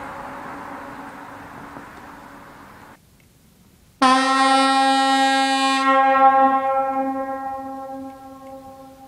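Kovotvar European locomotive air horn blowing a single note. One blast fades and stops about three seconds in; after a pause of about a second a second blast starts sharply and then slowly weakens and dies away.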